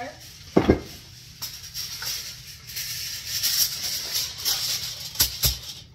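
A sheet of aluminium foil being handled and spread out, crinkling and rustling, with low thumps about half a second in and again near the end.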